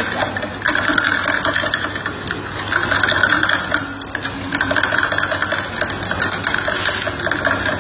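Long metal spoon stirring a glass full of ice cubes fast, the spoon and ice rattling and clinking against the glass in a rapid stream of clicks, with grinding swirls every second or two. A steady low hum runs underneath.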